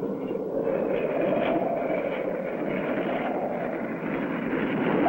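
Sound effect of a propeller plane's engine droning steadily as the plane comes in to land, its pitch rising slightly about a second in and then easing back.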